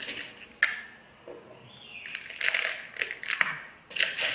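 Handling noise on a desk as iron filings and a magnet are set out: light rustling and clicks, with one sharp click just over half a second in and denser rustling in the second half.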